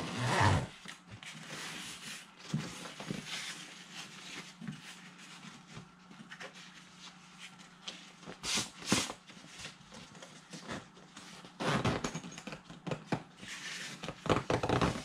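Zipper on an overstuffed fabric worm-bag lid being worked shut in short rasping pulls, with fabric rubbing and scraping between them; the lid is straining over the overfilled bag. The pulls come in scattered bursts and grow louder toward the end.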